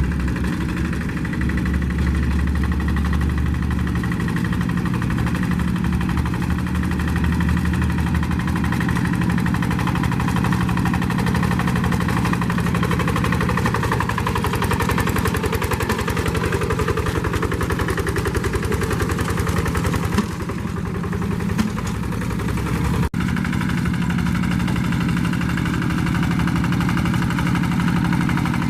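Diesel engine of a two-wheel paddy-field hand tractor running steadily under way, with a brief break about two-thirds of the way through.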